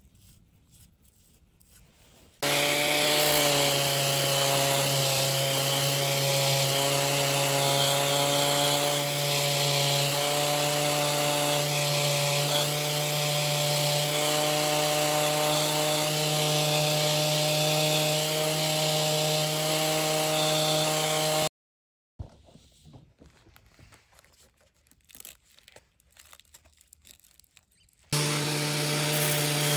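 A power tool working wood, running at a steady pitch with a hiss of cutting or abrading. It starts about two seconds in, stops abruptly around two-thirds of the way through, and starts again near the end.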